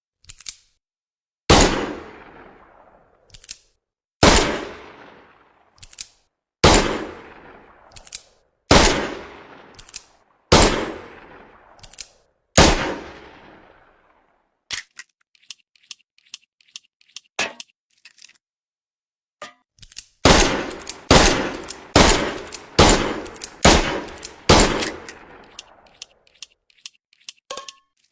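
Smith & Wesson Model 10 heavy-barrel .38 Special revolver firing two six-shot strings: six slow shots about two seconds apart, each with a long echoing tail, then after a run of light clicks six faster shots about one a second. More light clicks near the end.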